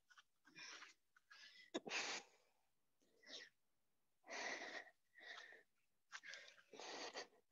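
Heavy breathing during push-ups: a short, noisy puff of breath about every second, with a sharp click about two seconds in.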